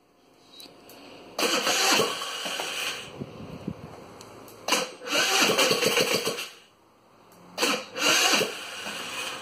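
GY6 four-stroke single-cylinder scooter engine on its first start after a rebuild. It catches and revs up in three loud bursts, faltering and nearly dying between them.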